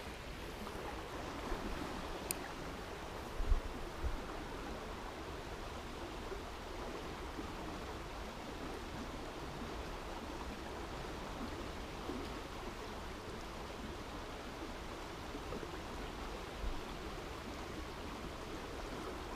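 Mountain river water running steadily over stones, an even rushing noise, with a couple of short low thumps about three and a half seconds in.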